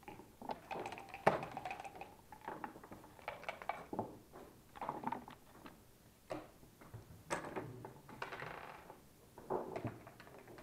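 Backgammon checkers clacking as they are moved on the board, with dice shaken and thrown onto the board: a series of sharp clicks and short rattles.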